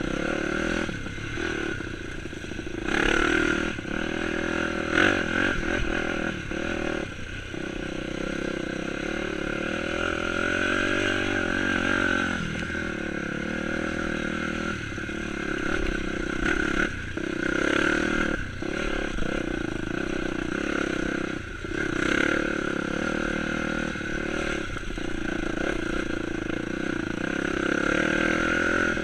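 Dirt bike engine revving up and down under load on a trail ride, with its pitch rising and falling throughout and short dips off the throttle every few seconds.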